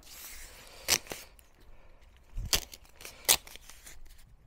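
Masking tape being pulled off the roll and laid along a natural-stone windowsill: a short tearing hiss at the start, then a few sharp clicks and crackles as the tape is handled and pressed down.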